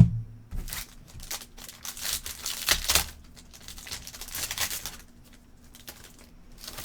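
Trading-card pack wrapper crinkling and cards being handled, with a knock at the very start. The rustling and crinkling is densest from about half a second in to about five seconds, then dies down.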